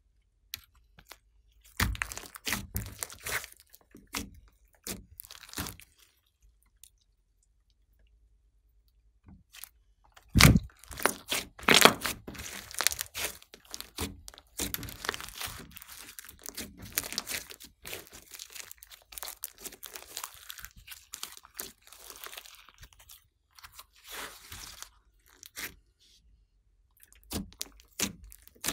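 Hands squishing, stretching and kneading a large lump of glossy slime with clay mixed in, giving clusters of sticky clicks and pops. There is a short quiet spell early on; the loudest pops come about ten and twelve seconds in, followed by a long run of dense clicking.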